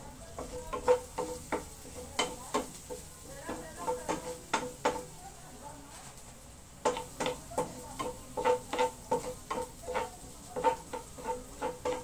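Wooden spatula stirring in a stainless steel frying pan, knocking against the pan in an irregular run of taps that each ring briefly, with a short pause about midway. Garlic browning in the pan sizzles faintly underneath.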